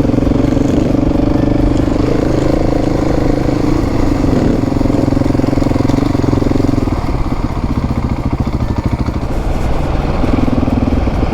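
Adventure motorcycle engine running under way with a steady note. The revs ease off about seven seconds in and pick up again near the end.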